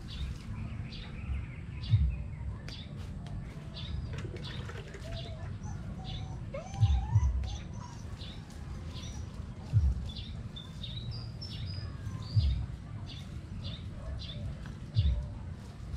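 Small birds chirping over and over in short, high chirps, with several dull low thumps in between.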